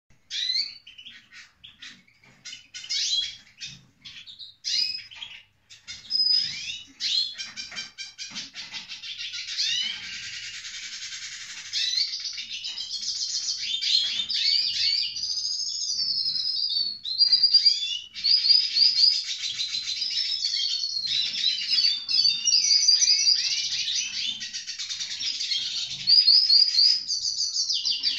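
Caged hooded (Magellan) siskin singing. Separate chirps and short trills come first, and after about nine seconds they run into a long, fast, twittering warble of quick rising and falling notes.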